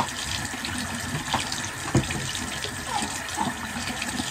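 Bathroom sink tap running steadily into the basin, with two short knocks, one at the start and one about two seconds in.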